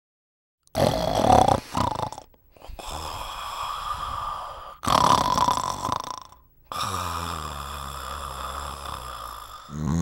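A man snoring: four long rasping breaths with short pauses between them, the last a steady low buzzing snore.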